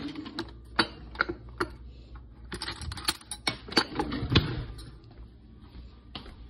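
Kitchen drawer pulled open and metal utensils clinking and rattling as a spoon is picked out: a few separate clinks, then a quick run of clatters a little before the middle, with a heavier knock after it.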